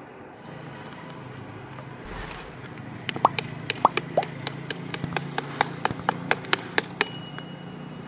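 A quick series of sharp clicks and clinks, about three a second, from hard objects knocking together. The last stroke leaves a short metallic ring. A low steady hum runs underneath.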